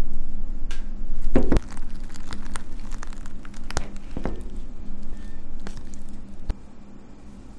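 Hard plastic round ice mold being handled and pulled open, making clicks, creaks and crackly rustling scrapes. The loudest cluster comes about a second and a half in, with further sharp clicks later on.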